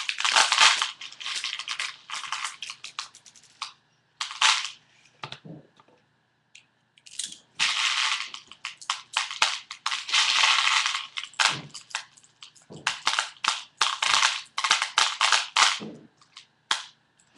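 Plastic airsoft BBs clattering and rattling, with many sharp plastic clicks, as they are handled for loading with a pen used as a makeshift speed loader. The sound comes in irregular runs, with a quiet pause about five to seven seconds in.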